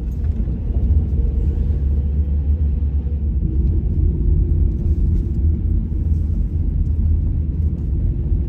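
Steady low rumble inside a moving car's cabin from the engine and tyres on the road while driving, with a faint hum that rises slightly about three and a half seconds in.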